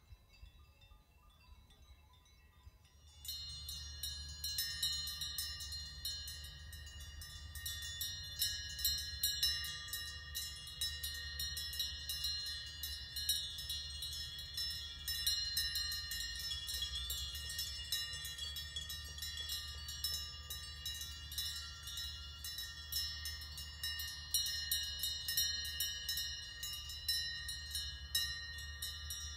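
Many cowbells on grazing cattle clanking and ringing irregularly at several pitches, starting abruptly about three seconds in, over a low steady rumble.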